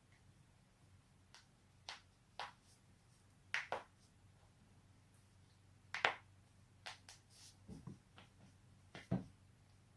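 A person's joints cracking: about a dozen sharp pops and clicks, some in quick pairs, with the loudest near the middle and near the end.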